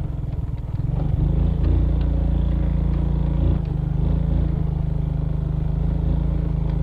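Suzuki Smash Revo's small single-cylinder four-stroke engine running steadily under load, climbing a loose, rocky dirt trail, with light rattling from the bike over the stones.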